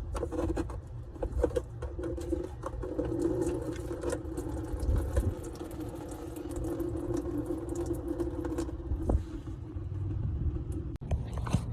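An oil filter being worked loose under a car: scattered clicks and scrapes over a steady low hum that stops about nine seconds in.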